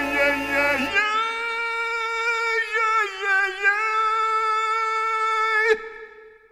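Show-tune singer holding one long sung note alone after the orchestra drops out about a second in; the note wavers a little in the middle and cuts off sharply near the end.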